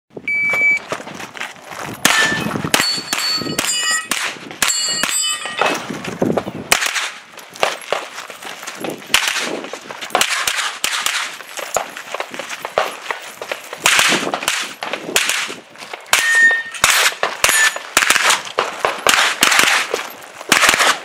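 A shot-timer beep, then a long string of shots from a Sig MPX pistol-calibre carbine, fired in quick groups with short breaks between. Steel targets ring after several of the hits.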